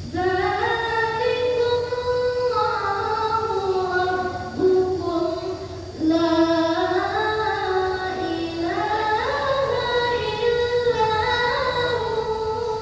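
A child reciting the Quran in melodic tilawah style. The child draws out long notes that waver and glide in ornamented runs, with a new phrase beginning about six seconds in.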